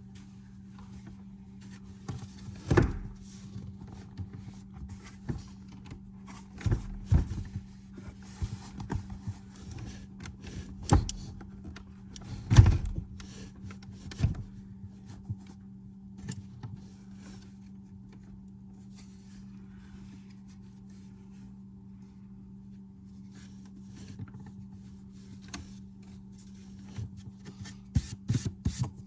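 Hands working on parts at close range: irregular knocks and clunks, the loudest about a third of the way in and again just before the halfway mark, with rubbing and scraping between them over a steady low hum.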